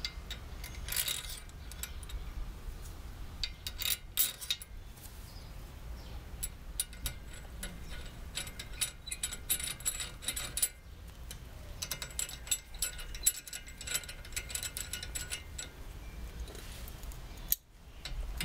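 Hand ratchet clicking in short runs, with light clinks of metal tools, as the brake-pad retaining pins are tightened into a Spoon Sports four-piston brake caliper. A low steady rumble runs underneath.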